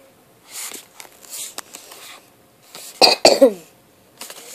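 A short cough about three seconds in, ending in a brief falling voiced sound, after two soft breathy rustles, in a small room.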